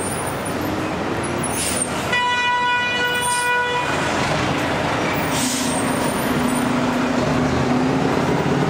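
Steady street traffic noise, with a vehicle horn sounding once for nearly two seconds about two seconds in.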